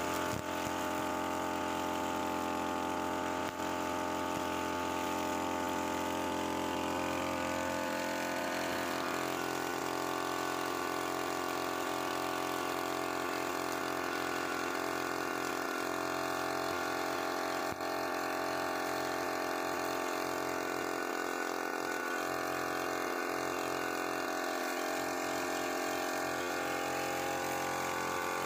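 UM328 brushcutter engine running steadily with only slight changes in speed, spinning a 2.4 mm nylon trimmer line that cuts grass down to the soil.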